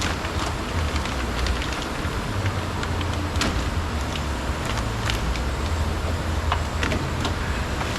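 Steady low rumbling background noise throughout, with scattered light clicks and taps from door trim pieces and clips being handled.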